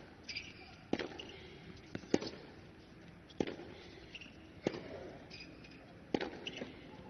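Tennis rally: five sharp racquet strikes on the ball, one about every second and a quarter, as the ball is hit back and forth.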